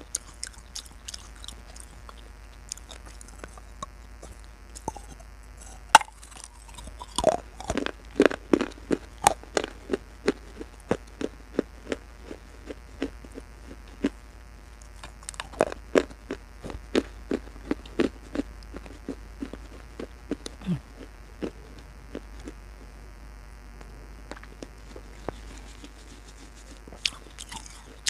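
Close-miked crunching as a person bites and chews pieces of clay pot: sharp, quick crunches in two busy runs, with quieter chewing between them.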